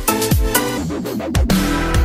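Electronic dance music: heavy kick drums that drop in pitch, under held chords.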